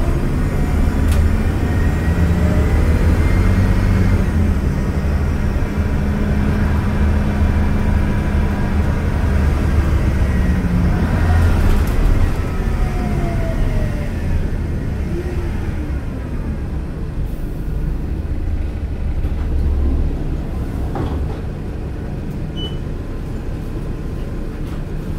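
Mercedes-Benz O500LE CNG midi bus running and driving, a steady low engine drone whose pitch rises and falls as the bus changes speed, easing off a little past halfway.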